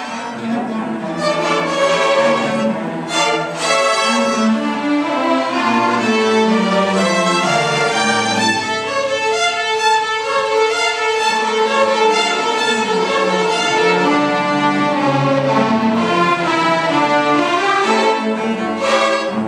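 String orchestra of violins and cellos playing live, a continuous texture of bowed notes, with a few sharp accented strokes near the end.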